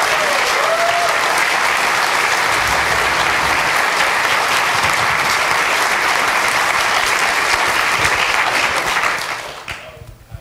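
Audience applauding steadily, dying away about nine seconds in.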